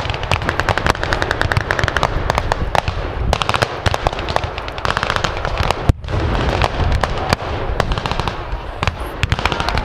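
Distant gunfire of blank rounds from rifles and machine guns in a mock battle: a rapid, continuous crackle of many overlapping shots, with one louder report about six seconds in.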